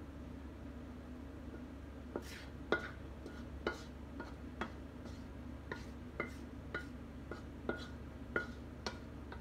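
A cooking utensil knocking and clinking against the pan as pancit canton noodles are stirred and mixed. Irregular sharp knocks come roughly once a second from about two seconds in, over a steady low hum.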